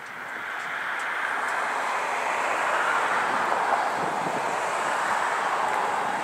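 Steady rushing noise of a passing vehicle, swelling over the first second and then holding.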